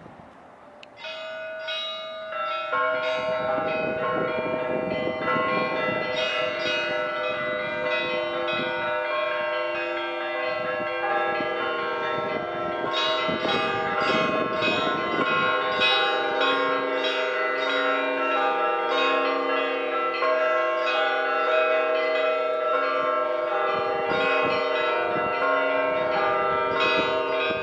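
Several church bells ringing together in a continuous peal, many overlapping strikes with long ringing tones, higher bells first with deeper bells joining a couple of seconds later. The ringing starts about a second in.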